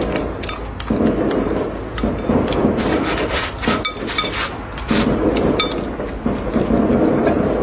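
Wooden chopsticks clicking and scraping against a ceramic bowl as the last scraps of food are scooped up: a run of short, irregular clicks.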